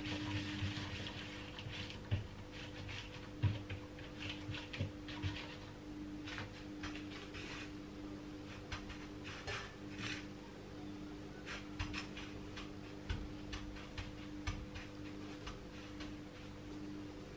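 Scattered soft taps and rustles as a pandesal dough ball is rolled in fine bread crumbs on a plate and crumbs are sprinkled over it, with a few sharper taps. A steady low hum runs underneath.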